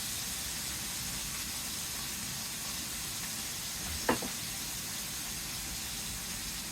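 Slices of pork frying in a hot skillet, a steady sizzle throughout. A brief short sound cuts in once about four seconds in.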